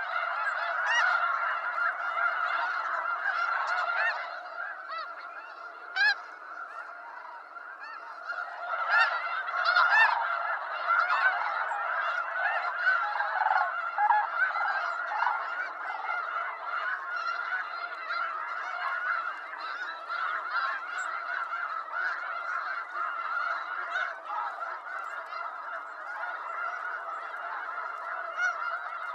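A flock of snow geese calling, many honks overlapping without a break. One loud single honk comes about six seconds in, and there is a louder, busier stretch around ten seconds in.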